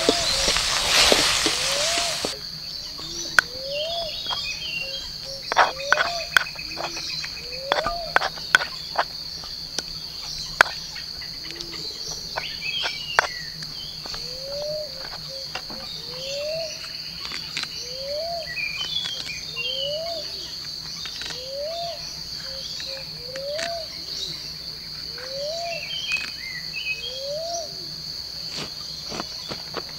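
Insect chorus: a steady high-pitched drone, with birds chirping, a short rising call repeating about every second and a half, and scattered sharp clicks and knocks. A loud rushing noise cuts off about two seconds in.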